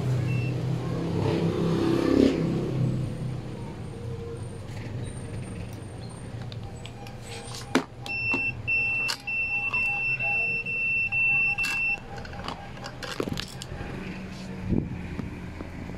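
A high, steady electronic beep, one pitch, sounding for about four seconds from about halfway in with a few short breaks, among sharp clicks and knocks of handling; a low rumble fills the first few seconds.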